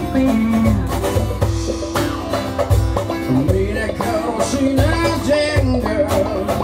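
Live band music: acoustic guitar and electric guitar playing over a cajon keeping a steady beat.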